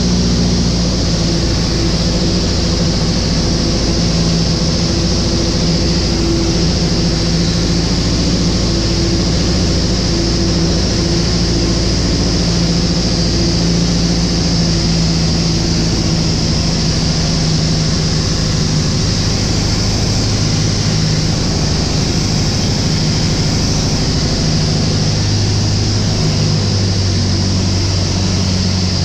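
Van's RV light aircraft's piston engine and propeller running steadily in flight, heard inside the cockpit with loud wind hiss over the canopy. The engine note shifts in the last few seconds.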